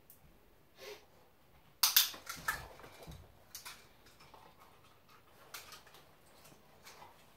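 A scattering of sharp clicks and small crunching taps from clicker training an Australian Shepherd puppy: the clicker marking and the puppy taking and chewing treats. The loudest cluster comes about two seconds in.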